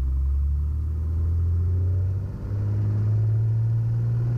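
Engine of a single-engine Piper, heard from inside the cockpit, rising in pitch as takeoff power is brought up at the start of the takeoff roll. The pitch steps up about halfway through.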